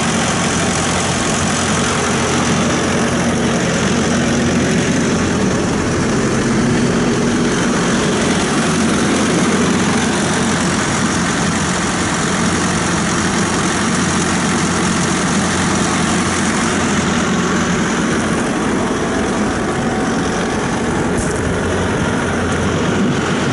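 CAT diesel engine of a Challenger SP115B self-propelled swather running steadily, heard close to the open engine compartment.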